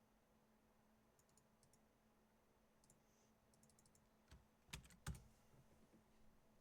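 Faint typing on a computer keyboard, scattered light key clicks, then a few louder knocks about four to five seconds in.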